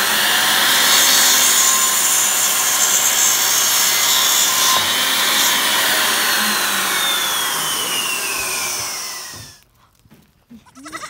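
A loud, harsh hissing noise that starts suddenly and fades out near the end, with a faint whistling tone sliding downward in its second half. It is an added sound effect.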